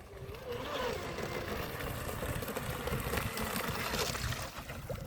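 Battery-powered RC hydroplane boat running fast across the water, its electric motor giving a faint whine that wavers up and down in pitch over a hiss of water and wind.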